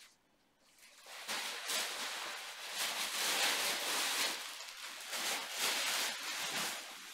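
Rustling of cloth and wrapping as baby clothes are lifted out, unfolded and handled, starting about a second in.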